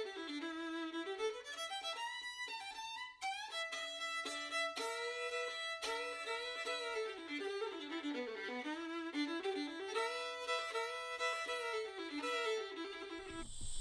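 Background music: a solo melody line moving up and down over a steady held note, which stops just before the end.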